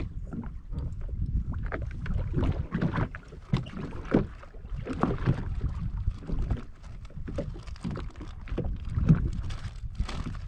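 Wind buffeting the microphone out on the water, a constant low rumble broken by irregular short knocks and splashes.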